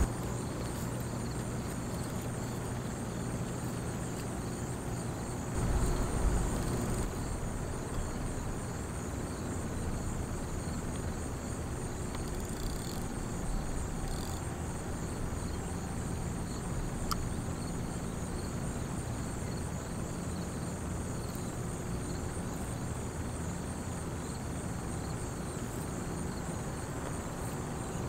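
Insects trilling steadily on a high pitch over a low, steady hum. A brief low rumble comes about six seconds in, and a single sharp click a little past the middle.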